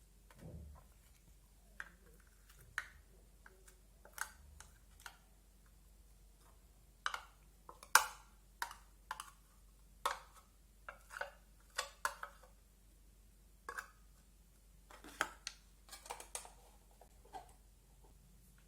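Slime worked by hand, giving off irregular sticky clicks and small pops in quick clusters.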